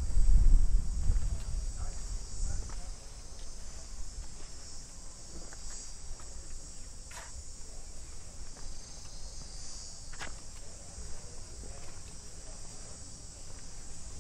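Steady, high-pitched buzzing of insects with no breaks. A low rumble sits under it in the first couple of seconds.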